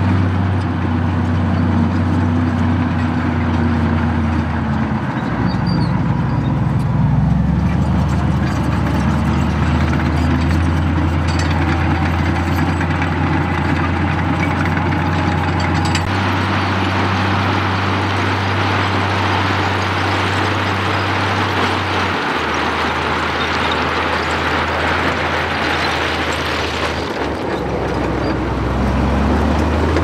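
Komatsu D85E crawler bulldozer's diesel engine running under load as the dozer pushes crushed stone, with the rock grinding and scraping under the blade and tracks. The engine note dips and picks up again a few times.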